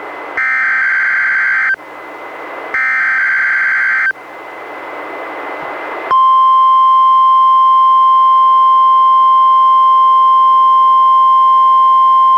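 NOAA Weather Radio alert signals played from a weather radio. Two of the three short screeching SAME digital header bursts come about a second and a half apart, with radio hiss between them. About six seconds in, the steady 1050 Hz warning alarm tone begins and holds.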